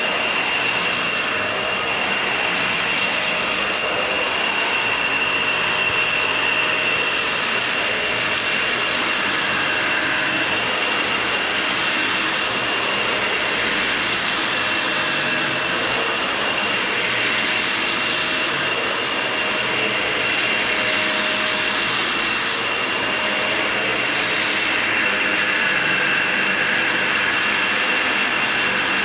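Vacuum cleaner running steadily over a shag rug, with a steady high whine over its even rushing noise.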